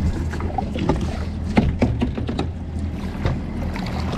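Twin Mercury Verado 300 V8 outboards idling as a steady low hum. Over it come a run of sharp knocks and splashing as water pours off a landing net swung over the boat, loudest in the middle.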